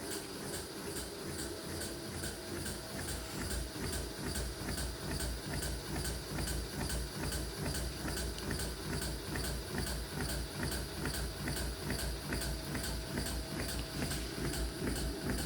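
Whirlpool washing machine running with an unusual rhythmic noise, about two to three beats a second, over a steady hum. The sound grows slightly louder towards the end.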